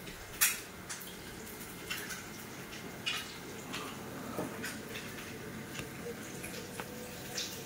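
Kitchen food-prep sounds: a few light clicks and knocks over a steady faint hiss, the sharpest about half a second in.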